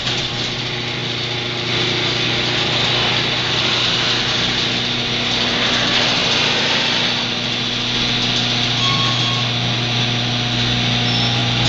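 Electric garage door opener running as it drives the door, a steady motor hum with mechanical rattle, cutting off near the end.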